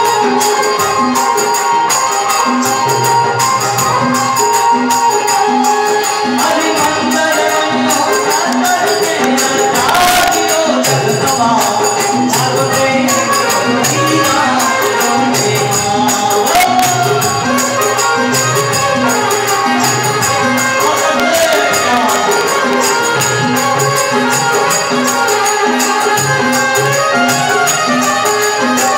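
Live devotional bhajan music: harmonium and electronic keyboard carrying a melody over a steady dholak beat, with jingling hand percussion keeping time.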